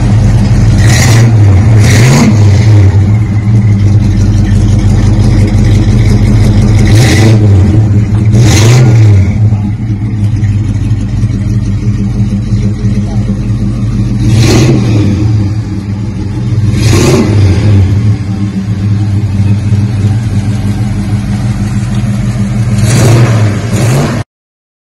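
1969 Plymouth Roadrunner's 383 big-block V8 idling with a low, old-school rumble through a dual exhaust with Flowmaster two-chamber mufflers. The throttle is blipped about seven times in short revs that rise and drop back to idle.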